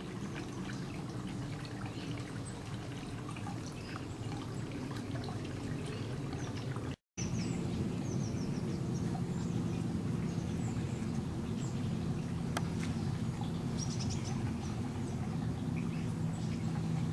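Garden ambience: small birds chirping and twittering here and there over a steady low background noise.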